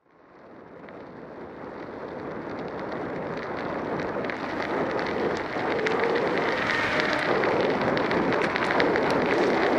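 Wind rushing over the microphone of a camera worn by a cyclist riding along a city street, with tyre and road noise beneath it. It fades in over the first few seconds, and faint light ticks come through in the second half.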